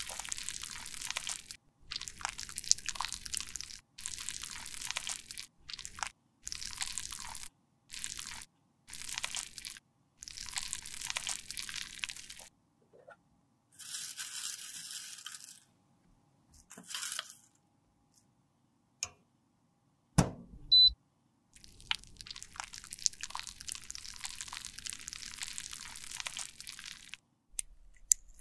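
Metal spatula scraping soft waxy lip balm into a small glass, in repeated short strokes about a second apart. Later, a spoon scooping white beeswax pellets, a single heavy thump a little past the middle, and a longer run of crackly scraping near the end.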